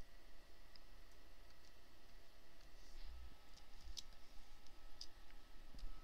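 Light computer mouse clicks, scattered and uneven, a handful of soft ones and two sharper ones about four and five seconds in, as points of a lasso selection are placed.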